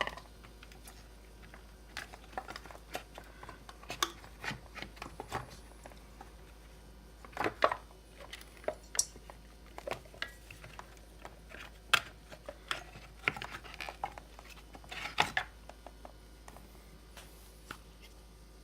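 Irregular clicks, taps and knocks of tools and small metal and plastic parts being handled while a chainsaw is taken apart, with a few louder knocks spread through.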